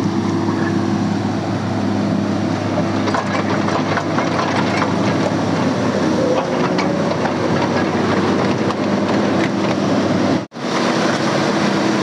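Diesel engine of a crawler excavator running steadily as the machine drives on its tracks, with a steady low hum and scattered clanks. The sound cuts out for an instant about ten and a half seconds in.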